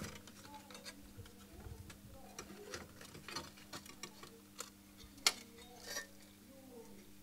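Hands handling the Amstrad NC100's plastic case and circuit board: small scattered plastic clicks and taps, with one sharper click about five seconds in.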